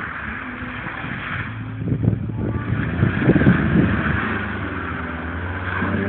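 Small hatchback's engine running and revving as the car slides and spins its wheels on snow, getting louder from about two seconds in.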